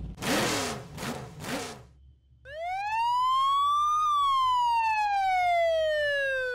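A police siren gives one slow wail, rising for about a second and a half and then falling for about three seconds. It is preceded by three short noisy whooshing bursts in the first two seconds.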